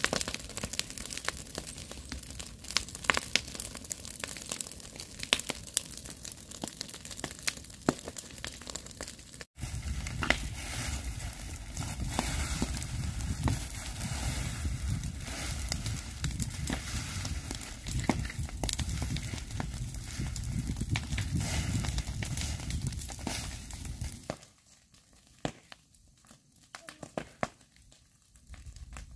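Dry grass and brush burning, crackling and popping with many sharp snaps. About a third of the way in a low rumble joins the crackle, and near the end the sound drops much quieter to a few scattered pops.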